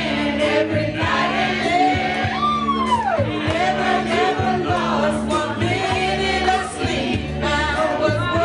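A voice singing into a handheld microphone over loud amplified backing music with a steady beat, holding long notes, with a long downward slide about three seconds in.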